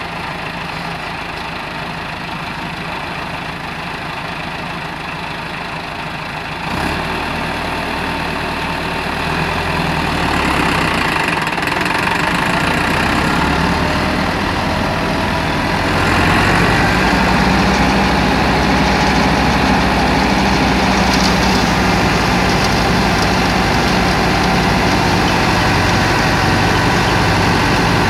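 Massey Ferguson 385 tractor's diesel engine driving a wheat thresher through its PTO shaft. About seven seconds in a brief knock comes as the drive takes up and the sound steps up. It grows louder twice more, around ten and sixteen seconds in, as engine and thresher come up to working speed, then runs steadily under load.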